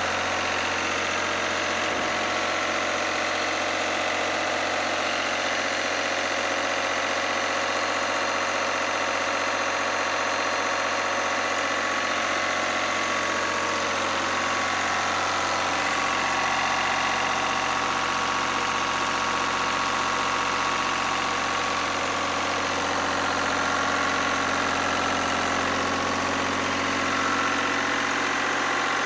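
Lister ST3 three-cylinder air-cooled diesel engine of a generator set running steadily.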